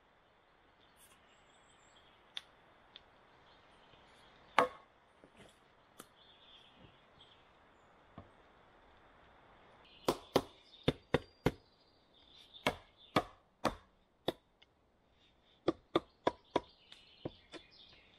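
Sharp knocks of timber being struck while logs are fitted into a wall: a few single blows early, then two quick runs of several blows about three a second, beginning about ten seconds in.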